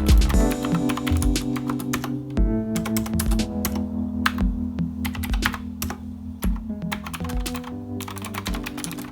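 Typing on an Azio MK Retro mechanical keyboard with clicky blue switches: quick, irregular key clicks, over background music.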